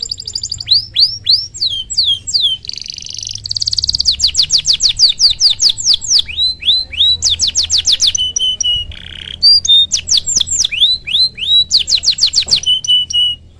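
Domestic canary singing a long, loud song of rapid repeated down-sweeping chirps, fast trills and buzzy phrases, changing phrase every second or two and stopping near the end.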